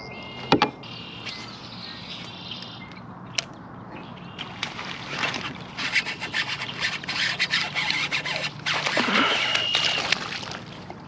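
A hooked bass splashing at the water's surface beside a kayak while a baitcasting reel winds in line, a dense run of clicks and splashes from about four seconds in.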